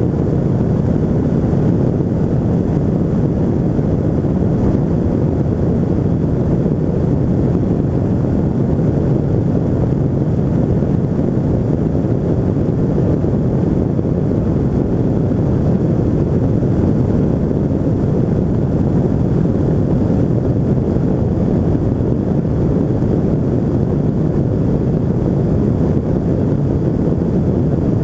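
Steady wind rush buffeting the microphone over the constant drone of a flex-wing microlight's Rotax 582 two-stroke engine and pusher propeller in cruise flight.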